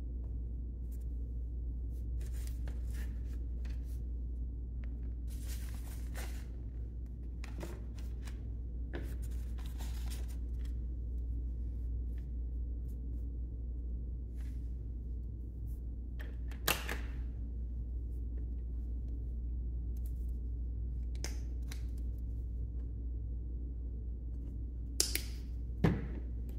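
Paintbrush scrubbing acrylic paint onto paper in short strokes, heard as brief dry swishes over a steady low hum. A few sharp knocks near the end.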